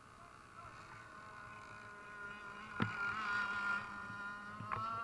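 Small two-stroke petrol engine of an RC racing boat buzzing at speed across the water: a high, thin whine that wavers in pitch. A sharp click comes near the middle, and the engine grows clearly louder after it.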